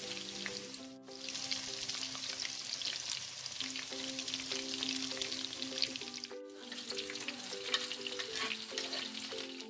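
Pakoras in gram-flour (besan) batter deep-frying in hot oil: a dense crackling sizzle full of fine pops. It dips briefly about a second in and again past six seconds. Soft background music plays underneath.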